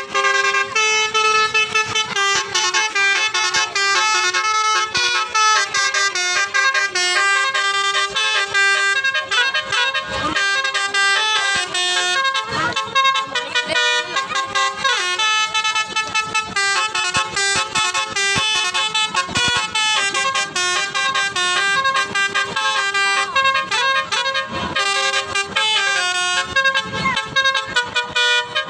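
Basuri telolet musical horn on a vehicle playing a tune: a run of bright horn notes stepping up and down in pitch one after another, without a break.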